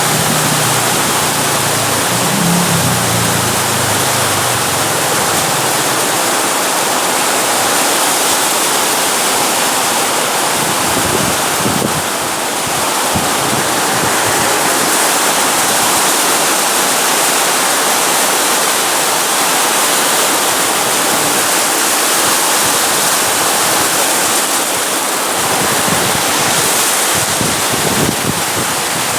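Very heavy rain pouring down in strong wind, a loud steady hiss, with low gusts of wind buffeting the microphone now and then.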